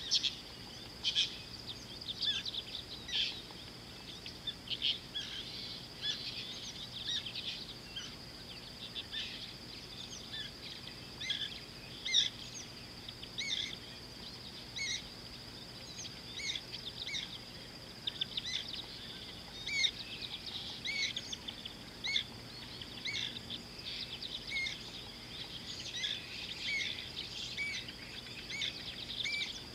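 Birds chirping and calling in many short, quick notes, over a steady high-pitched whine.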